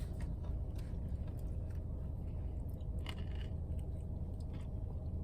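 A person chewing a Chick-fil-A chicken mini, a small chicken sandwich on a sweet bun, with scattered small clicks and crunches, over a steady low hum.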